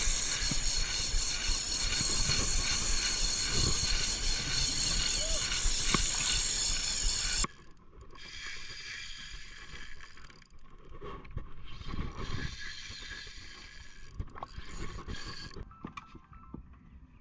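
Spinning reel being cranked by hand to wind in line, its gears whirring and clicking, over a loud steady hiss. About seven seconds in the sound cuts abruptly to a quieter stretch of reeling, and music comes in near the end.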